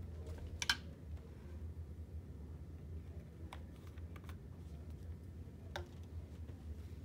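A few small, sharp clicks and taps from handling medical supplies on a table: steel forceps being picked up, a cap screwed onto a small plastic bottle, and the bottle set down. The first click is the loudest. A low steady hum runs underneath.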